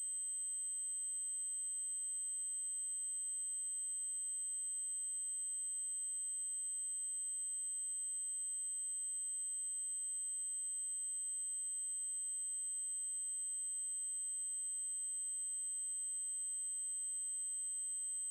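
Steady, high-pitched electronic test tone: an 8192 Hz triangle wave held at one pitch, with a faint blip about every five seconds.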